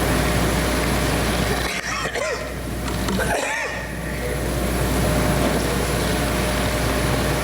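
A man coughing and clearing his throat, a couple of short bouts about two and three and a half seconds in, over a steady hiss and hum from an open microphone.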